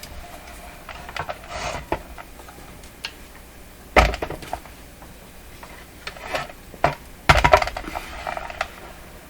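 Knocks and clatter of hard objects being handled on a workbench, with one sharp knock about four seconds in and a quick run of clattering knocks near the end.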